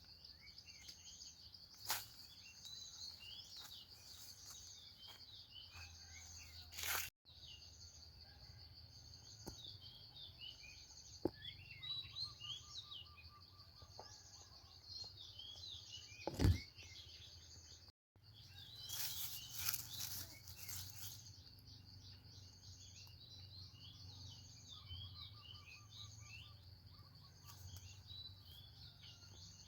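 Small birds chirping repeatedly over a steady high insect drone, with a few brief rustles.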